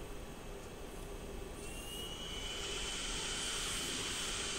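A steady high-pitched whine with a hiss that sets in about a second and a half in and slowly grows louder.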